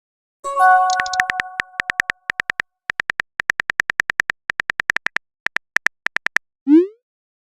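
Texting-app sound effects: a message chime, then a long run of rapid keyboard-tap clicks as a message is typed, ending in a short rising swoosh as it is sent.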